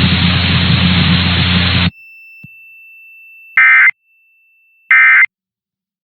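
Hiss of static with a low hum, which cuts off about two seconds in. After it a faint steady high tone, then two short loud buzzy data bursts about a second and a half apart: the Emergency Alert System end-of-message code that closes the test.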